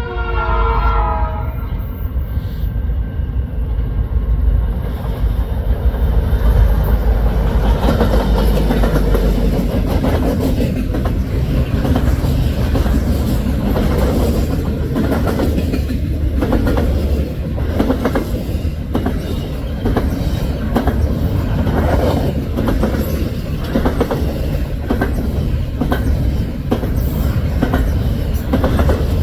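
Canadian National SD75i diesel locomotive passing with a double-stack freight. Its air horn sounds briefly and ends about a second in, then the engine's heavy rumble goes by. From about ten seconds in, the train's wheels clack in a steady rhythm as the stack cars roll past.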